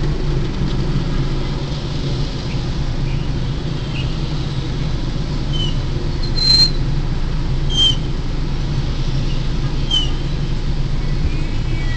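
Steady low rumble of idling car and passing motorbike traffic, heard from inside a stopped car, with several short high chirps over it.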